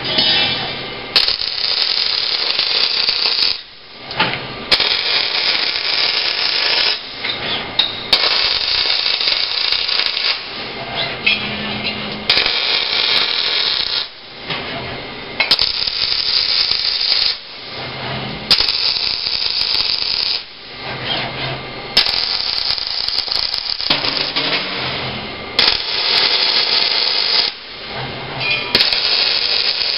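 An OTC robotic MIG welding arc runs in a series of short welds of about two to three seconds each, roughly ten in all, with brief gaps between them.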